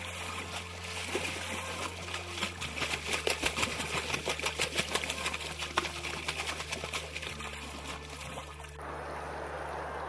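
Water splashing and trickling, with a dense run of small rapid clicks through the middle, over a steady low hum; the sound changes abruptly to an even hiss near the end.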